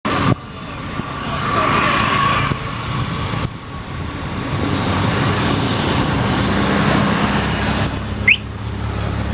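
Running noise from a bicycle ride picked up by a camera fixed to the handlebars: wind buffeting and road rumble that rise and fall, with traffic sounds. A single short rising squeak comes near the end.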